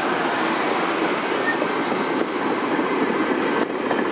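GO Transit bilevel passenger coaches rolling past close by, a steady noise of steel wheels running on the rails, with a brief dip in loudness near the end.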